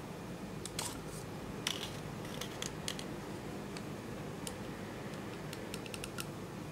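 Small, sharp, irregular clicks from a lipstick tube being handled: the cap pulled off and the base twisted to wind the lipstick up, over a steady low background hum.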